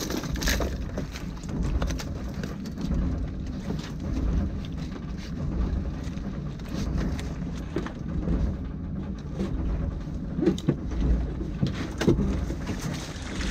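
Fishing boat's engine running steadily as a low, uneven rumble, with a few light knocks near the end.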